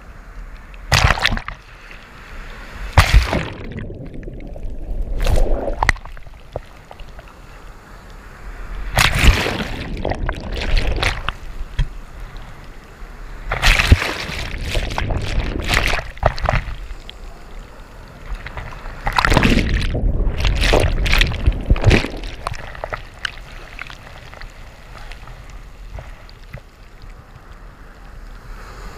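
Ocean surf washing over and around a camera held at water level: breaking waves and foam come in irregular loud surges, with quieter sloshing between them. At times the camera goes under the water.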